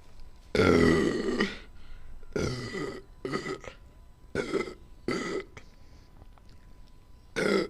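A young woman burping repeatedly: about six burps of varying length. The first, about half a second in, is the longest and loudest, and the last comes after a pause near the end.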